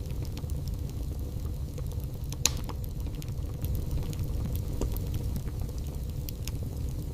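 Wood fire burning in a fireplace: a steady low roar with scattered crackles, and one louder pop about two and a half seconds in.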